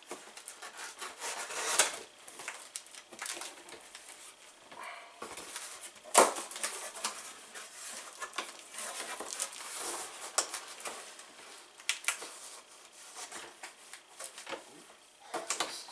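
A cardboard shipping box being opened by hand: a knife slitting the packing tape, then the cardboard flaps and contents rustling and scraping, with several sharp knocks and clicks.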